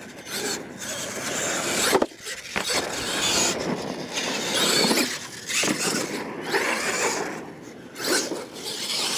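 Radio-controlled scale monster truck driving over dirt: the motor and drivetrain running in repeated surges as the throttle is worked, with tyres scrabbling on the dirt.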